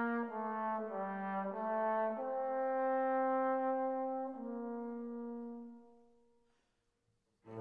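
Background music: a slow melody of long held notes that fades out about six seconds in, followed by a moment of near silence before new music begins right at the end.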